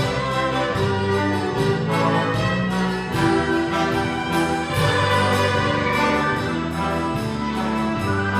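Symphony orchestra playing a full ensemble passage, bowed strings and brass together, with notes changing in a steady rhythm.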